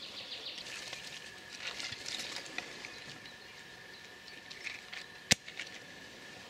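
A match struck once to light a pile of dry kindling: a single sharp snap about five seconds in, after faint rustling and crackling.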